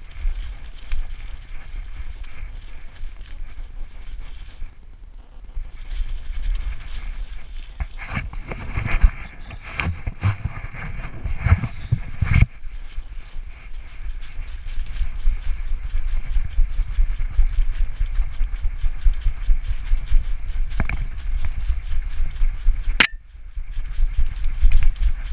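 Jostling and rubbing of a GoPro strapped to a running dog's back, with the dog's paws crunching through dry fallen leaves and a low wind rumble on the microphone. A stretch of louder knocks and rustling comes about a third of the way in as a person's hand grabs at the harness, and a single sharp click comes near the end.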